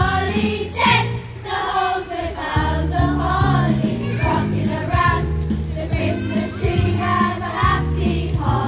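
A choir of young voices singing together in unison over an accompaniment of steady low bass notes.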